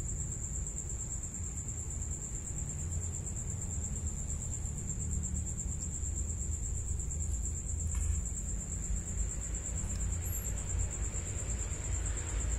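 A steady, unbroken high-pitched insect trill, like a cricket, over a low rumble.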